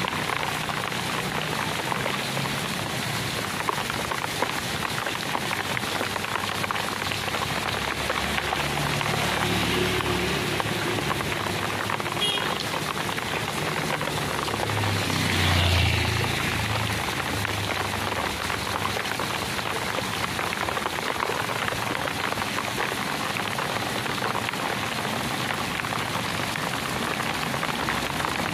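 Heavy rain falling steadily on a wet street, as a dense even hiss. A low hum comes and goes underneath, and there is a brief louder swell about halfway through.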